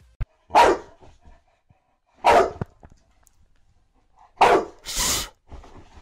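A boxer dog barking at a feather toy: four short barks spread over a few seconds, the last two close together.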